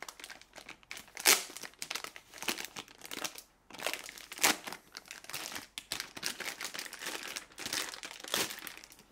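Packaging crinkling and tearing as a boxed drone controller is unwrapped: irregular rustles throughout, with one sharper crackle about a second in.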